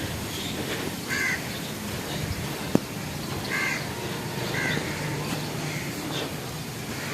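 Crows cawing several short times over a steady rustling haze, with one sharp click about three seconds in.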